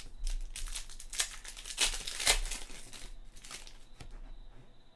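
A trading-card pack wrapper being torn open and crinkled by hand. The crinkling is densest in the first half, then thins to a few light rustles and clicks.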